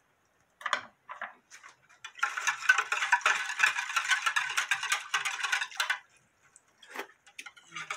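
Metal wire whisk beating rice water in a glass bowl, its wires clicking and scraping rapidly against the glass for about four seconds to dissolve the salt and sweetener. A few light knocks come before it, and one more near the end.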